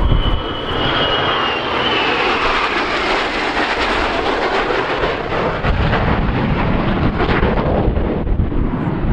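Four F/A-18 Hornet fighter jets passing overhead in formation: loud, steady jet engine noise, with a high whine that slides down in pitch over the first two seconds or so.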